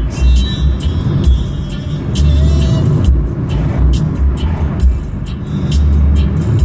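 Music with a heavy, pulsing bass beat and quick regular ticks, playing over the steady road and engine noise of a car being driven.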